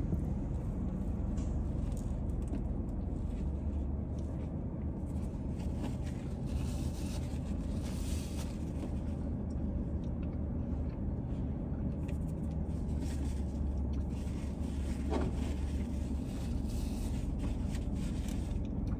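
Steady low rumble inside a parked car, with faint, irregular chewing sounds from a Big Mac being eaten. A brief faint tone sounds about 15 seconds in.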